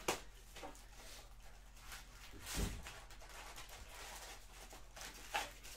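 A cardboard trading-card box being opened and its foil card packs lifted out by hand. There is a sharp click just after the start, soft rustling, a dull thump about two and a half seconds in, and another short scrape about five seconds in, over a steady low electrical hum.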